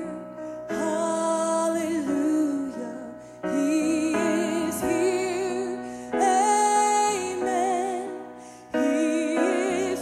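A woman singing a slow gospel song with vibrato into a microphone over sustained instrumental accompaniment. The phrases are held a few seconds each, with short breaths between them.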